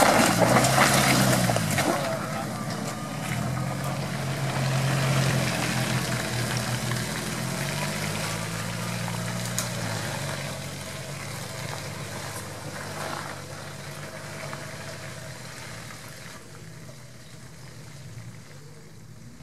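Off-road 4x4 engine running, its revs rising and falling as it works through the terrain, and fading steadily as the vehicle moves away.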